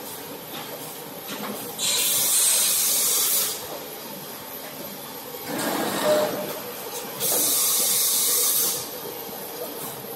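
Toilet paper log saw running with a steady machine hum. Loud hissing bursts come twice, about two seconds in and again near eight seconds, each lasting about a second and a half. A shorter, lower-pitched burst comes around six seconds.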